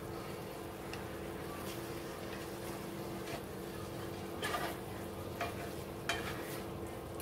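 Metal spoon scraping and tapping in a skillet as soft cooked peach slices are spooned into a bowl: a few short scrapes and clicks, the loudest about two-thirds of the way in. A steady low hum runs underneath.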